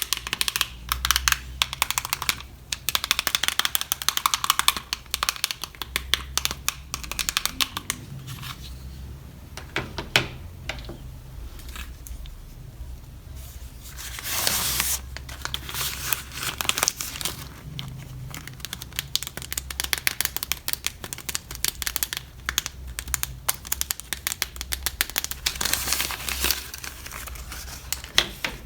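Toy packaging being handled and opened: plastic and card crinkling with many small clicks and taps, and a longer rustle about halfway through.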